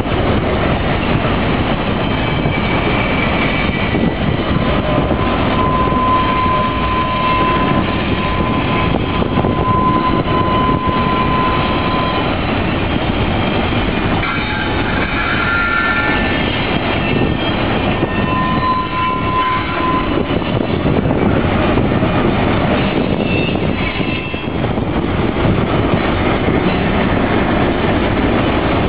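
BNSF double-stack container train rolling past at close range with a steady rumble and rattle of wheels and cars. Thin high squeals from the wheels come and go several times.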